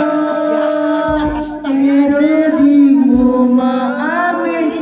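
A man singing one long held note into a handheld microphone, amplified through a sound system.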